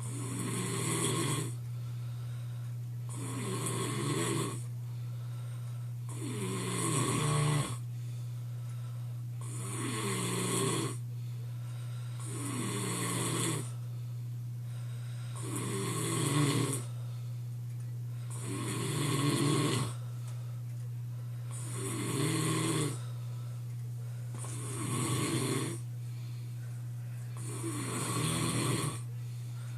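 A sleeping man snoring steadily, with about ten snores, one roughly every three seconds, each a rough rattling breath. A steady low hum runs underneath throughout.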